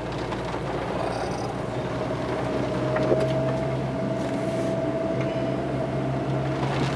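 Car moving slowly, heard from inside the cabin: a steady engine and road hum with a faint steady whine, and a few light knocks about three seconds in.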